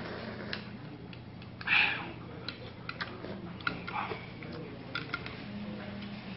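Eating udon noodles: scattered light clicks of chopsticks against a bowl and chewing, with a brief louder slurp about two seconds in and a softer one near four seconds, over a steady low hum.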